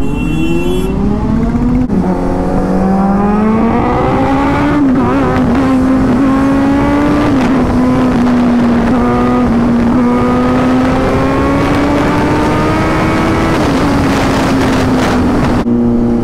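Kawasaki Z900's inline-four engine pulling hard under acceleration: the revs climb, drop at an upshift about two seconds in, climb again and then hold high and steady at highway speed, easing off slightly near the end. Heavy wind rush runs underneath.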